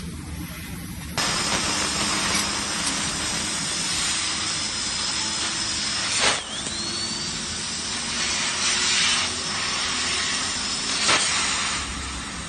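CNC cutting machine cutting stainless-steel sheet: a loud steady hiss of the cutting gas jet starts abruptly about a second in, with a thin high tone over it. Sharp clicks about halfway, followed by a short rising whistle, and again near the end.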